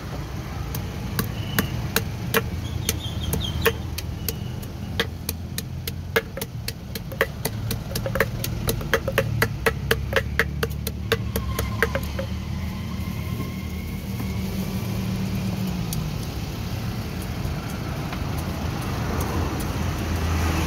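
Wooden pestle pounding chopped fruit and chili sauce in a mortar: sharp knocks, sparse at first and then about three a second, stopping a little over halfway through. A steady low rumble runs underneath and continues alone afterwards.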